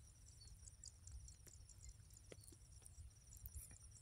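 Near silence: faint, steady high-pitched insect chirping over a low rumble of outdoor background.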